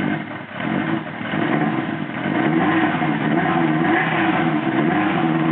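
Honda CB900 Custom's air-cooled inline-four engine running just after a carburettor clean, the revs dipping briefly and then rising about two seconds in and holding higher.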